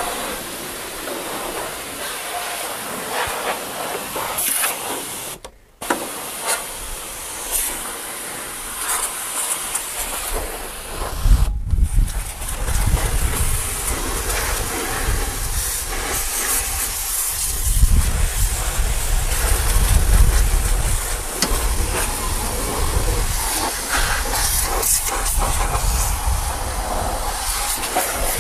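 High-pressure washer jet hissing steadily as it sprays the steel chassis and underside of a truck, water spattering off the metal. The sound drops out briefly twice, and from about halfway through a low rumble runs under the hiss.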